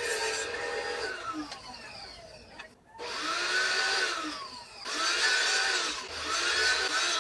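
Benchtop table saw's motor winding down in pitch to a near stop, then started again about three seconds in and running, its whine rising and sagging in pitch over a noisy hiss as wood is fed through the blade.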